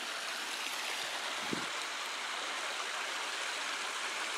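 Shallow water flowing in a small irrigation canal: a steady, even rush.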